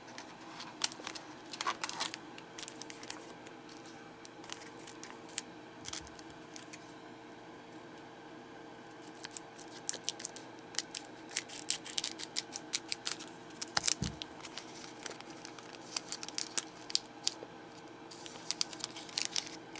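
Scissors cutting open a foil trading-card booster pack, with the wrapper crinkling: a run of quick crackly snips and clicks, densest in the middle and again near the end, and one soft low thump partway through. A faint steady hum runs underneath.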